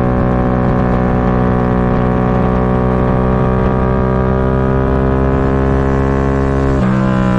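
1999 Suzuki SV650's 645 cc V-twin engine pulling hard at racing speed, its note rising slowly as the bike accelerates, with wind rush. Near the end the note changes abruptly as the rider comes off the throttle for braking.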